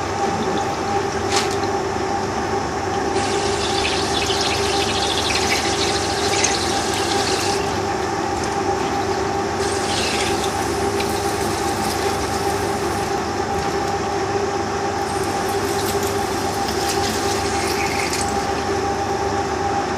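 Turret lathe running with a steady two-tone hum while a drill bores out the excess material in a model diesel engine's crankcase casting, cutting-oil coolant pouring onto the work. Three stretches of brighter hissing cutting noise come and go over the steady run.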